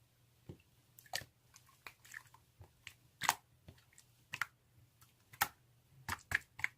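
Slime being squeezed and pressed by hand: irregular sticky clicks and small pops, about fifteen of them spread unevenly.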